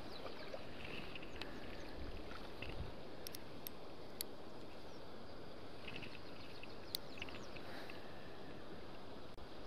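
Steady outdoor background noise by a river, with brief bird chirps now and then and a few sharp clicks.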